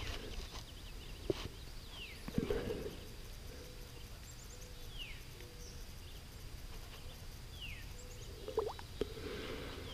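Quiet lakeside ambience: a few soft splashes and light knocks as a plastic ammo can is dipped into shallow lake water to fill it. A bird gives a short downward whistle three times, about three seconds apart.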